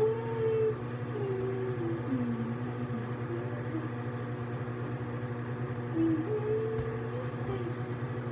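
Steady hum of a bathroom ceiling exhaust fan. Over it, a few short wordless hums from a person's voice sliding in pitch, near the start and again about six seconds in.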